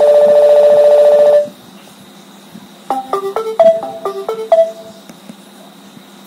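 Nokia 6500 classic phone playing two short alert tones in turn. First comes a loud, rapidly pulsing single tone for about a second and a half. After a pause comes a quick run of short bright notes stepping between pitches for about two seconds, the last note ringing out.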